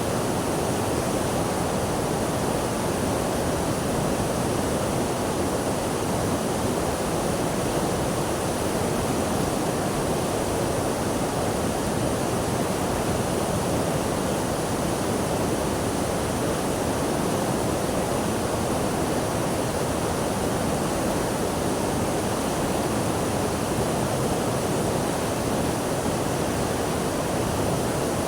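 Water rushing in a steady, unbroken hiss, with no swells, splashes or pauses, like a waterfall or fast stream.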